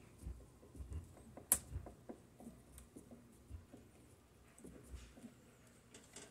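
Faint small clicks and scrapes of a screwdriver driving a screw through a sun visor's metal mounting bracket, with one sharper click about a second and a half in.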